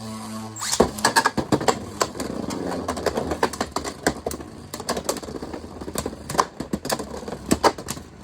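Two spinning Beyblades battling in a plastic stadium: many sharp, irregular clicks and knocks as the tops strike each other and the walls, over a steady scraping whir of their tips running on the stadium floor.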